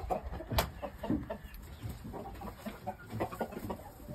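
Shamo gamefowl clucking in short scattered calls, with two sharp knocks in the first second.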